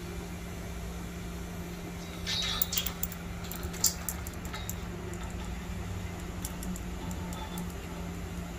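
Metal gauge rod clinking and scraping against the fill pipe of an underground fuel storage tank as it is drawn up after a water-finding paste test: a cluster of sharp clicks and scrapes a little over two seconds in, then a few lighter ticks. Behind it is a steady low hum.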